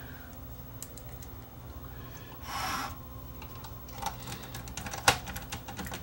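Light clicks and taps of plastic and metal parts being handled as the front nose cone of a cassette deck is pressed so its side tabs lock into their slots. There is a brief rustle near the middle and a cluster of clicks near the end, with one sharp click about five seconds in.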